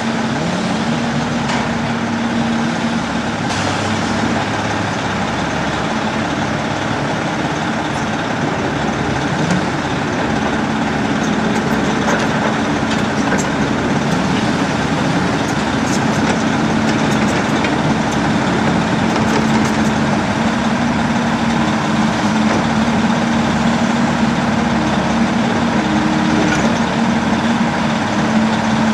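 Heavy diesel engine of an excavator log loader running steadily as it works its grapple beside a log truck, a loud, even drone throughout.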